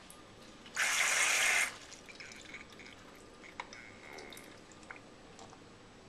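A short burst of hissing, running water lasting about a second, starting and stopping abruptly, followed by faint scattered drips and ticks.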